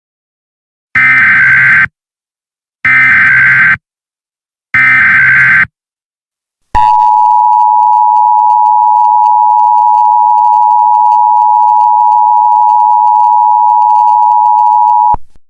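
Emergency Alert System alert opening: three loud one-second bursts of SAME header data tones, about a second apart, then the steady two-tone EAS attention signal held for about eight seconds before it cuts off.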